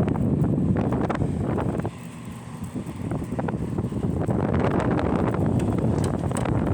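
LG window-type air conditioner blowing, its strong airflow rumbling on the microphone; the rush eases for about a second around two seconds in, then comes back.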